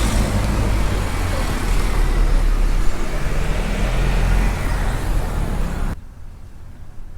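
A motor vehicle's engine running close by in a street, with road and traffic noise; it cuts off abruptly about six seconds in, leaving quiet background.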